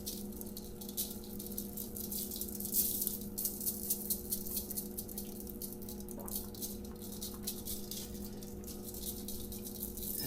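Dry barbecue rub being shaken from a shaker bottle onto meat: a quick, irregular rattling patter, over a steady low hum.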